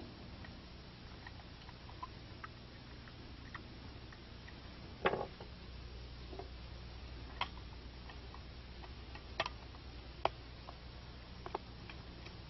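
Scattered small clicks and knocks of rifle parts being handled while a semi-automatic rifle's wooden stock is swapped for a plastic one, the loudest knock about five seconds in. A faint low hum runs underneath.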